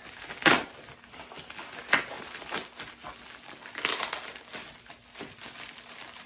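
A package being opened by hand: its wrapping crinkles and rustles in a series of short noisy bursts, the loudest about half a second in and about four seconds in.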